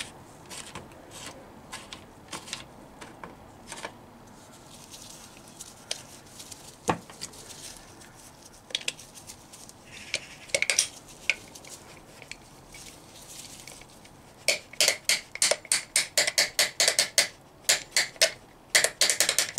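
Metal-on-metal clinking of Rover V8 rocker shaft parts (rocker arms, springs and pedestals) being worked along the shaft by hand. A few scattered clicks at first, then a quick run of light clicks, about four or five a second, in the last few seconds.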